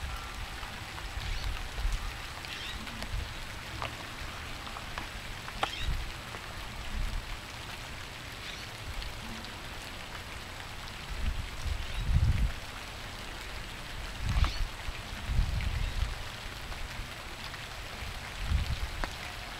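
Steady rain hiss, with a few short, faint bird calls from blackbirds. Several low rumbles stand out as the loudest sounds, the biggest about twelve seconds in and again around fourteen to sixteen seconds.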